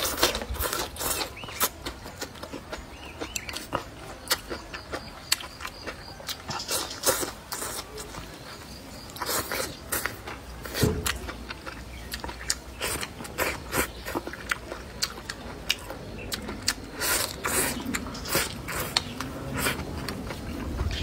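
A person chewing and crunching food close to the microphone, a mouthful of green chili pepper with rice and braised pork ribs. Sharp crisp crunches come in clusters between quieter chewing.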